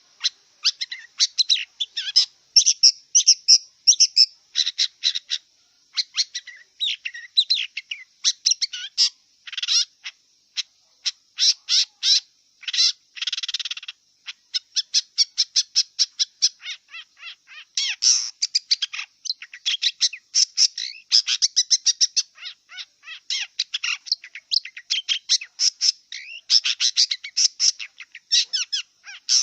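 Long-tailed shrike (cendet) singing: a fast, varied string of short, sharp chirps and chattering notes with brief pauses between phrases.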